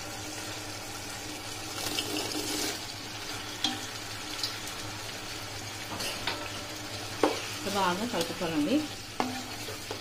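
Onion-and-sauce gravy sizzling and bubbling in a nonstick kadai while a wooden spatula stirs and scrapes the pan, as fried vegetable Manchurian balls are tossed through the sauce. A quick run of scrapes and knocks comes near the end.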